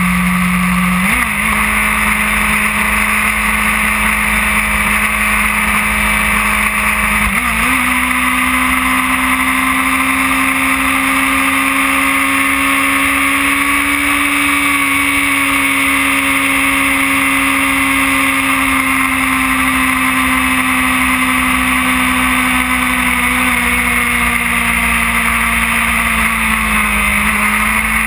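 2008 Yamaha R1's inline-four engine running at road speed, with heavy wind rush over the bike-mounted camera. The engine note steps up twice, about a second in and about seven seconds in, then holds steady, easing slightly near the end.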